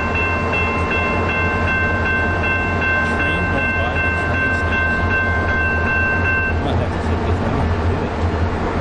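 Railroad grade-crossing warning bell ringing rapidly as the gates come down, stopping about six and a half seconds in, over a steady low rumble.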